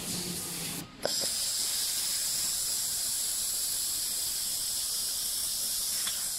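Handheld fiber laser welder hissing steadily as it welds 1 mm aluminium sheet. The hiss starts about a second in, right after a short click.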